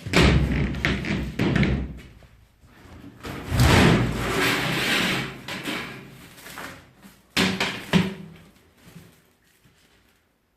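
Thumps and knocks from something being handled, with two noisy stretches followed by two sharp knocks a little more than halfway through.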